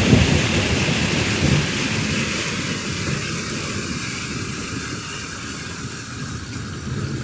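Rain falling on a river surface, with a deep roll of thunder that is loudest at the start and slowly fades away over several seconds.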